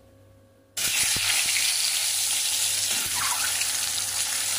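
Hot oil sizzling steadily in a kadai as peeled boiled eggs fry in it, starting suddenly about a second in with a few light knocks.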